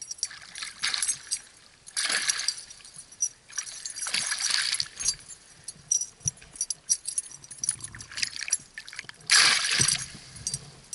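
Hooked pike thrashing at the water's surface on the line, splashing in several irregular bursts, the loudest a little over nine seconds in.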